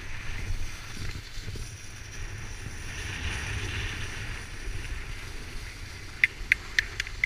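Skis sliding and scraping over snow at speed, with wind rumbling on the microphone. Near the end come about five sharp clicks in quick succession.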